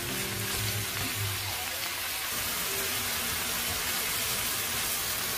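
Beef brisket, bean sprouts and garlic chives sizzling in a hot pan as they are stir-fried, a steady even hiss. A few soft background music notes fade out in the first second and a half.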